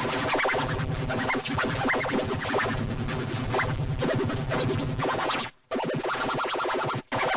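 Cartoon soundtrack run through heavy distortion effects: dense, loud, electronic-sounding music with a scratchy, stuttering texture. It cuts out abruptly twice near the end.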